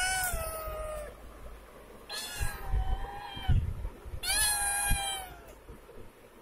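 Hungry kittens meowing: three long meows, each falling in pitch. The first ends about a second in, and the others come about two and four seconds in. A low thump sounds between the second and third meows.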